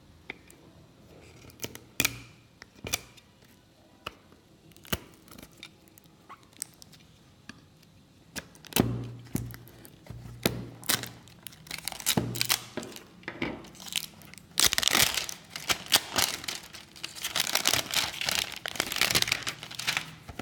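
Retail packaging being opened by hand: scattered clicks and snaps at first, then from about eight seconds in, tearing and crinkling of the wrapping that grows louder and busier near the end.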